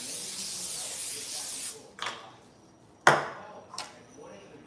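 PAM aerosol cooking spray hissing steadily as it is sprayed onto zucchini slices, stopping a little under two seconds in. Then three short sharp knocks, the loudest about three seconds in.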